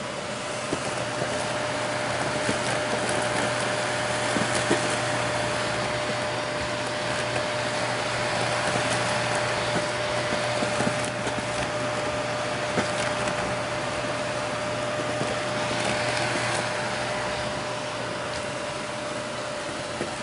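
SHARP EC-WX310 cyclone vacuum cleaner running: an even rush of air with a steady tone in it, swelling and easing a little, with scattered light clicks.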